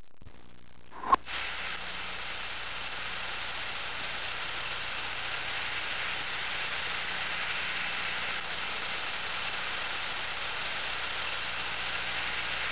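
A sharp click about a second in, then a steady rushing hiss.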